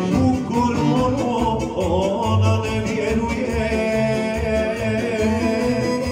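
Folk dance music with a steady beat and a singing voice.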